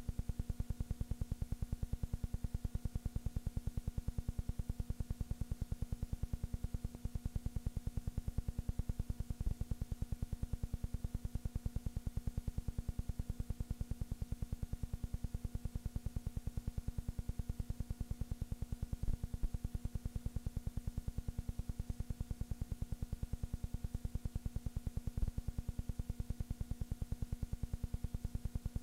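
A steady mechanical hum with a fast, even low pulsing and a few faint clicks, unchanging throughout; no voices or crowd.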